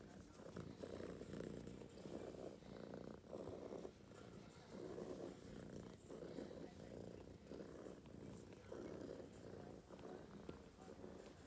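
Calico kitten purring close up while being stroked, the purr swelling and fading about once a second with her breaths.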